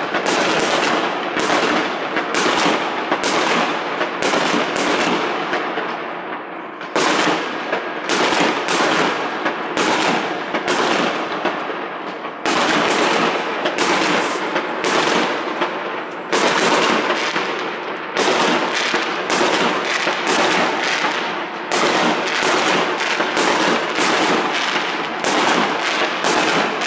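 Aerial fireworks bursting in a rapid, continuous barrage of sharp bangs, about two to three a second, each trailing off in echo, with brief lulls twice.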